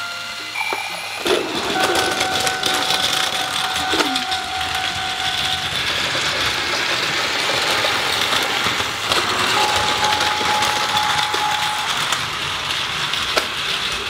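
Plarail battery-powered toy train running on plastic track: a steady motor whir with rapid clicking and clattering over the track, starting about a second in. Plain electronic tones from the toy set sound twice over it, once from about two seconds in and again near ten seconds.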